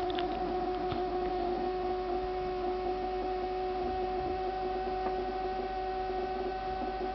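Refrigerator giving off a steady, pitched hum with a higher overtone, a few faint clicks near the start; the owner holds that this is not the normal noise of a fridge.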